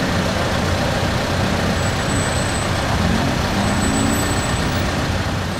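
Steady street traffic noise: vehicles running past, with a faint engine hum now and then.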